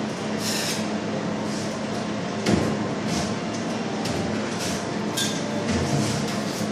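Plasterers' hand tools scraping and tapping on plasterboard in short strokes, with a louder knock about two and a half seconds in, over a steady low hum.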